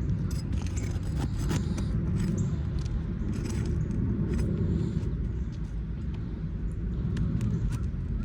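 Metal clicks and scrapes of a tool prying roofing nails out of asphalt shingles, repeated many times, over a steady low rumble.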